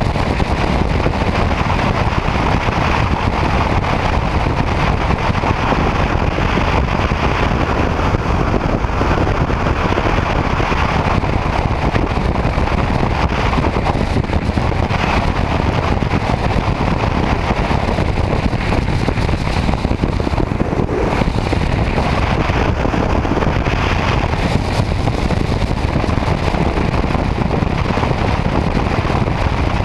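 Steady wind rush and road noise of a motorcycle cruising at highway speed, picked up by a camera mounted on the bike.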